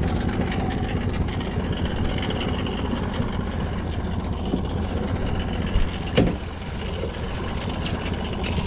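Boat motor running steadily at low speed, with two short knocks close together about six seconds in.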